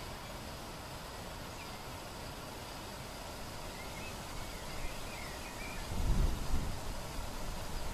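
Quiet outdoor ambience by a lake: a steady background hiss with a few faint bird chirps near the middle. About six seconds in, a short low rumble rises and fades.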